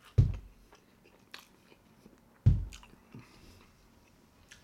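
Two heavy thumps of a hand hitting a thin wall, about two seconds apart, with faint wet chewing smacks between them.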